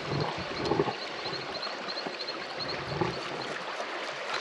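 Steady rush of a waterfall and its stream, with small high chirps repeating over it and a low rumble now and then.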